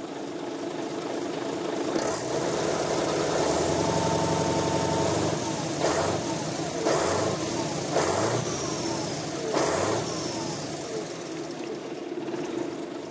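Scania 143 truck's V8 diesel engine running steadily, then blipped four times in the middle, the revs dropping back after each blip.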